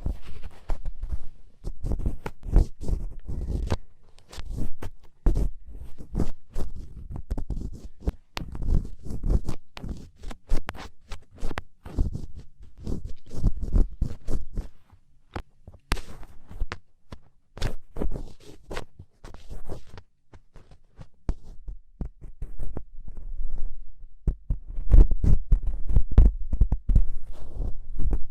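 An ear pick scraping earwax inside an ear canal, heard close up as dense, irregular clicks and scratches with low thumps. It grows louder in the last few seconds.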